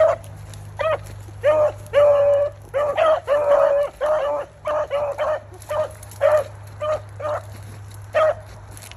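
Beagle hound giving tongue on a rabbit's scent line: a run of short chop barks mixed with a few longer drawn-out bawls, which stop near the end.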